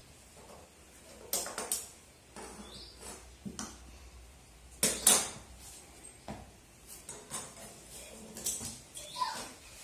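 Pair of metal scissors clicking in a few short bursts of sharp clicks, the loudest about five seconds in, as the trouser legs are worked at to shorten them.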